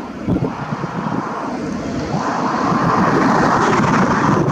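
Jet noise from a B-52H bomber's eight TF33 turbofan engines as it rolls out after landing, swelling louder about two seconds in. Wind buffets the microphone underneath.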